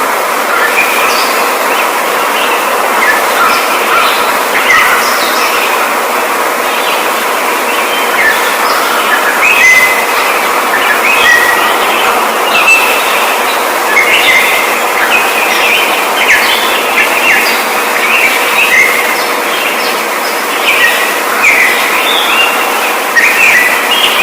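A flock of birds chirping and chattering, many short calls overlapping, over a steady dense hiss.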